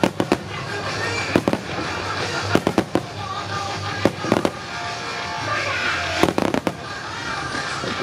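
Starmine fireworks shells bursting with sharp bangs in quick clusters, five groups over about eight seconds, over loud music.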